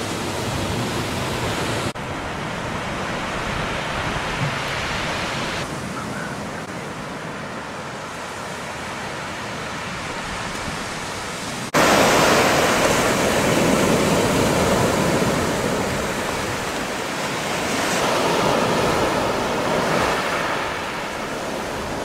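Sea surf breaking and washing up a black sand beach: a steady rushing wash that turns abruptly louder about halfway through, then swells and eases as the waves come in.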